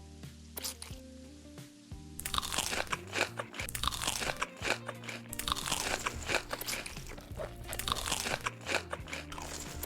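Close-miked crunchy eating: loud, rapid crunching bites and chewing of crisp food, starting about two seconds in, over steady background music.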